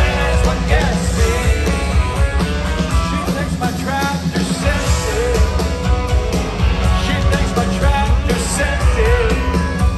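A live country band playing loudly, with electric guitars, bass and drums and a male singer, heard from the crowd through the stadium sound system.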